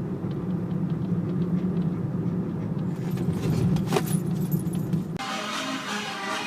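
A steady low rumble like a running vehicle, with one sharp click about four seconds in. Music with a guitar comes in near the end.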